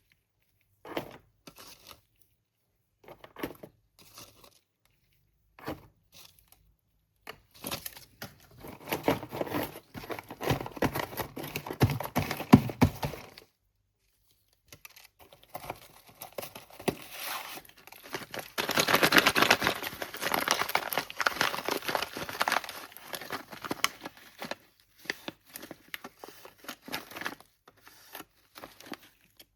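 Packaging of a box of slate pencils being handled, torn and crinkled, in two long stretches of dense crackling with short rustles before, between and after.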